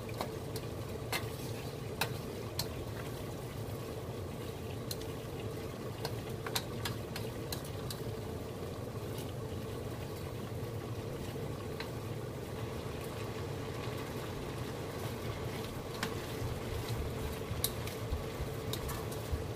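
Beef, vegetable and noodle stir fry sizzling steadily in a skillet as it is stirred, with scattered light clicks of the utensil against the pan. A steady low hum runs underneath.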